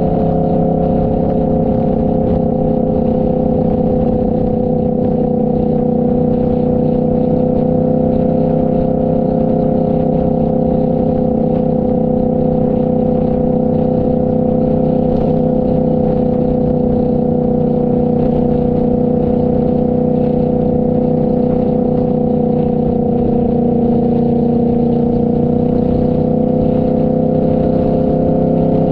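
Motorcycle engine running at a steady cruising speed, a constant drone whose pitch dips slightly and recovers about three-quarters of the way through.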